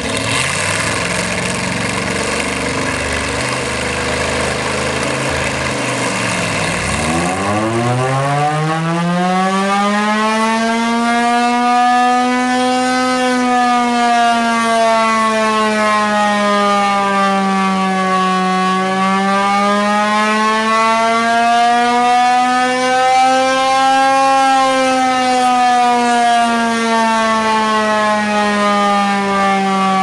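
Chrysler Hemi V8 engine driving an air raid siren runs steadily. About seven seconds in the siren winds up into a wail that climbs steeply in pitch over a few seconds. The wail then keeps sounding, sinking and rising slowly twice in pitch and getting louder.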